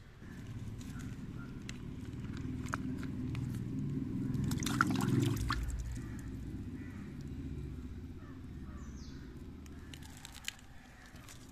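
Hands sloshing and splashing in a muddy water puddle while rinsing freshly dug turmeric rhizomes, with small clicks and patters, loudest about halfway through.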